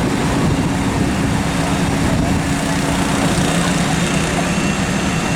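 Fire engine motor running steadily: a constant low hum with an even hiss over it.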